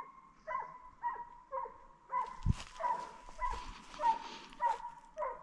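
Hunting dog baying in short repeated barks, about two a second, as it drives a wild boar toward the hunters. A single low knock comes about halfway through.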